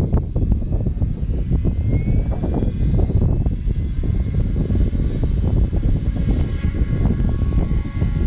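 Radio-controlled model helicopter spooling up: a rising whine from its rotor drive for a second or two, then a steady whine as it lifts off. Wind buffets the microphone throughout and is the loudest sound.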